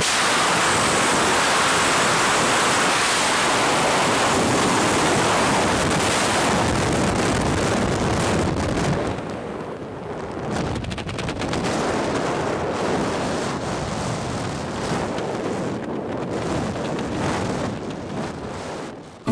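Wind rushing over the camera microphone during a skydive descent. It is strong and steady for about the first nine seconds, then drops a little and flutters in quick gusts.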